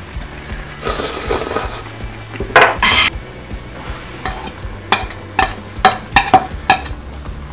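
Broth bubbling in a pan on a portable gas burner, with a utensil scraping food. In the second half a spoon taps sharply against a bowl and the pan edge about eight times as egg, rice and vegetables are scraped into the boiling broth.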